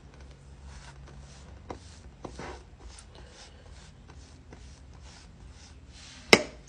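A table utensil spreading peanut butter across pancakes, soft repeated scraping strokes, with a sharp click near the end.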